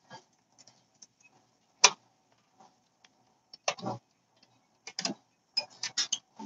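Needle-nose pliers clicking against the sheet-metal locking clips that hold an electric range's surface burner element as they are worked loose. The clicks are short, sharp and metallic and come at irregular intervals, with a loud one about two seconds in and a quick cluster near the end.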